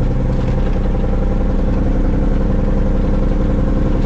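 Heavy diesel truck engine running steadily under way, heard from inside the closed cab.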